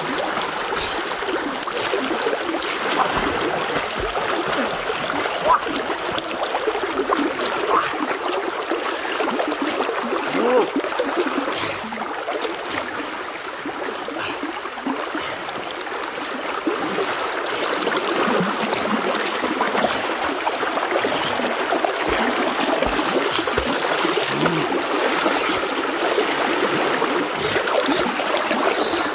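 Shallow, fast river water rushing and gurgling over the bed, with intermittent splashing from a person wading and groping along the bottom by hand.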